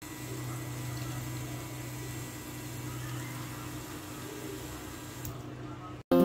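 Small homemade 12 V DC water pump running with a steady motor hum while its jet of water splashes. The splashing stops about five seconds in, then guitar music cuts in at the very end.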